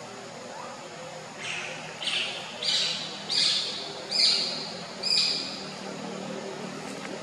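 A run of six loud, high-pitched animal calls, each about half a second long and less than a second apart, growing louder up to the fifth and then stopping.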